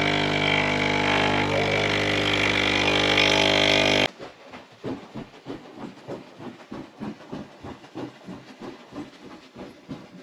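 Espresso machine pump running as a shot brews, a loud steady hum that cuts off suddenly about four seconds in. Then footsteps on a wooden floor, about two a second.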